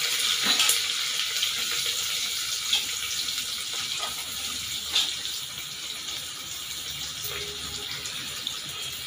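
Chopped onion and green chillies sizzling in hot oil in a pressure cooker: a steady hiss with a few sharp crackles, slowly dying down as the fresh onion cools the oil.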